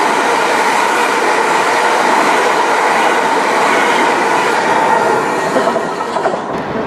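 Southern Class 377 Electrostar electric multiple unit running through the station at speed without stopping: a steady loud noise of wheels on rails that dies down about five seconds in as the last coach passes.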